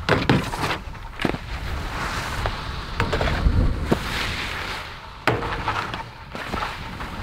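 Skis clacking onto and sliding along terrain-park rails: several sharp knocks, with a hissing scrape between them.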